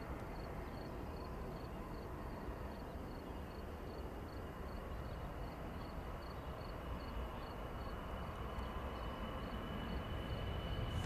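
Airbus A319's CFM56 jet engines on the takeoff roll, heard across the airfield: a low rumble that slowly grows louder, with a high steady whine coming up in the last few seconds. An insect chirps in a steady rhythm, about three times a second.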